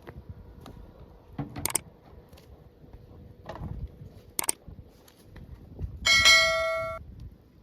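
A few sharp clicks and knocks, then about six seconds in a piece of metal is struck and rings with a clear, bell-like tone for about a second before cutting off abruptly.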